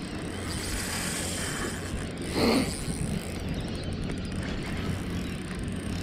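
Shimano Stradic Ci4+ spinning reel being wound in against a fish on a bent light rod, its gears running under steady low rumble. A brief louder rush about two and a half seconds in.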